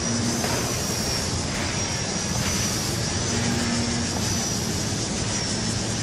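Walkera V120D02S micro RC helicopter in flight: a high-pitched rotor and motor whine that wavers up and down in pitch about once a second, over a steady rushing background noise.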